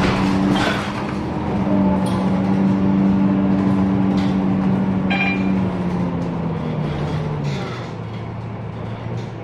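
Inside a MAN NL323F city bus under way: steady diesel engine and drivetrain hum over road noise, with a couple of brief clicks or rattles. Between about six and seven and a half seconds in, the hum drops in pitch and gets a little quieter as the bus slows down.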